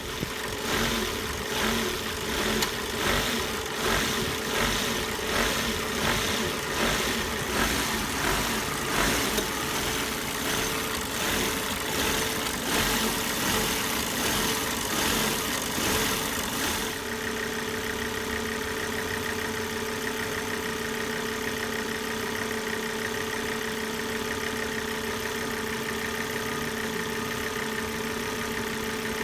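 2004 Volvo S60R's turbocharged five-cylinder engine idling rough: for more than half the time it rises and falls unevenly, then it settles into a steady, even run with a constant hum. The owner's rough idle comes with lean and rich off-idle codes (P2177, P2178) and a smoking dipstick.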